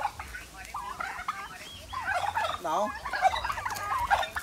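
Several domestic turkeys gobbling, with many quick warbling calls overlapping one another.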